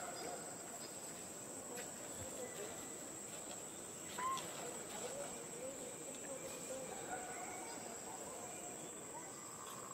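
Steady, high-pitched drone of insects, with a single short squeak about four seconds in.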